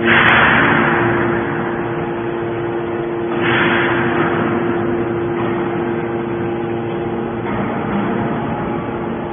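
Horizontal hydraulic scrap-metal baler running: its hydraulic power unit hums steadily, and two surges of rushing noise come from the machine, one at the start and one about three and a half seconds in, each fading over a second or so.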